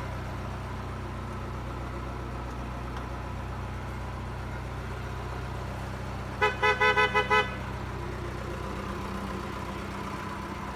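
A work machine's engine idling steadily. About six and a half seconds in, a newly fitted electric vehicle horn is tested with a rapid string of about six short beeps.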